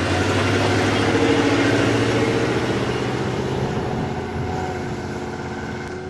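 Pickup truck driving past close by and away down a dirt track, its engine loud at first and then fading steadily as it pulls away.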